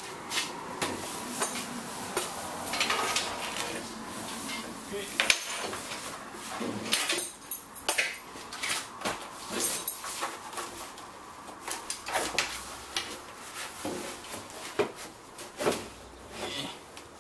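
Irregular metallic clinks, knocks and rattles of a perforated steel-tube exoskeleton backpack frame and its straps being handled and worked onto a mannequin.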